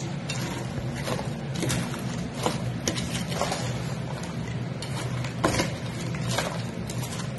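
Steel ladle scraping and clinking against a stainless-steel bowl as chicken pieces are tossed through chilli powder and salt. The clinks come irregularly, about twice a second, over a steady low hum.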